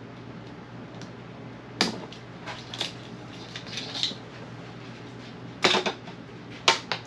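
Sharp clicks and snaps of wire bundles being handled and zip ties being snipped, coming singly and in pairs about a second apart, the loudest near the end. A low steady hum runs underneath.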